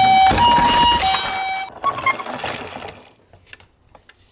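Toy ambulance's electronic two-tone siren sounding the hi-lo pattern of a Japanese ambulance. It cuts off about a second and a half in, leaving faint clicks and rattles.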